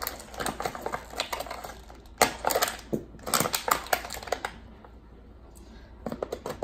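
Plastic toy packaging being handled as a doll is unboxed: rapid clicks and crackles for about four seconds, a quieter moment, then a few more clicks near the end.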